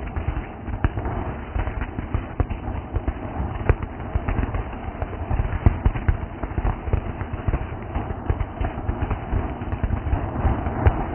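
A consumer firework going off with many rapid, irregular crackling pops.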